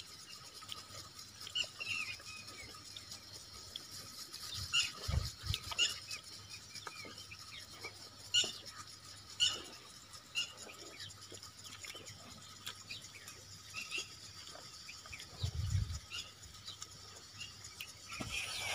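Hands squelching and swishing cow dung through cow urine in a metal basin to mix jeevamrit: faint, irregular wet squishes and small squeaks, with a couple of dull thumps.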